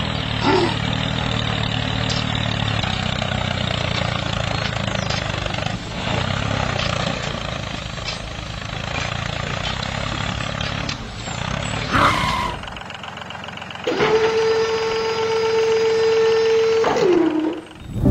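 Tractor engine running steadily. Near the end it gives way to a held, steady whine that drops in pitch as it cuts off.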